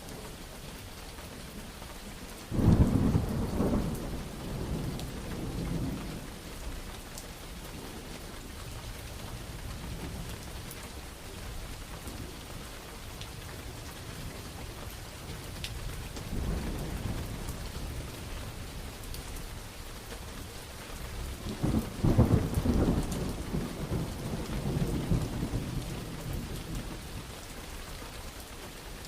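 Steady rain with rolling thunder. A peal breaks suddenly about two and a half seconds in and rumbles on for a few seconds, a softer rumble follows around the middle, and a second loud peal rolls for several seconds near the end.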